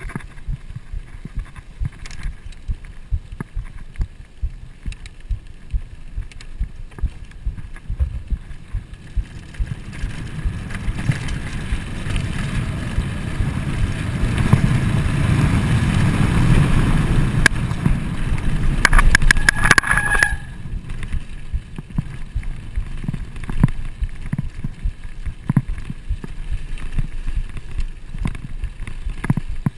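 Full-suspension mountain bike rolling fast down a dirt trail, rattling and knocking over bumps. Wind rushes over the microphone, building to its loudest between about 12 and 20 seconds in. Near the two-thirds mark there is a brief high squeal with quick ticking.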